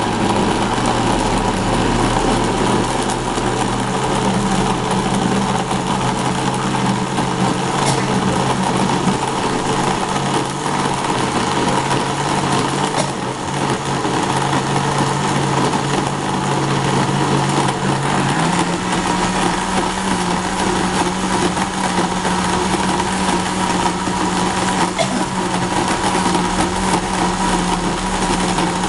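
Electric blender motor running steadily under load, its hum stepping up in pitch about eighteen seconds in.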